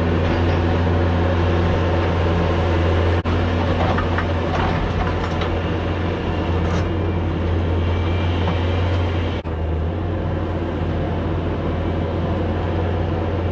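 Bobcat S570 skid steer's diesel engine running steadily under work, a loud, continuous low drone. The sound drops out briefly twice.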